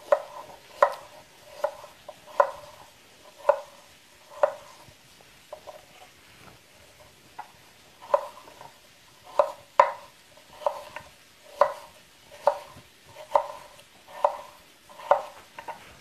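Knife chopping apple pieces on a wooden cutting board: sharp knocks about one a second as the blade strikes the board, fainter and sparser for a few seconds in the middle.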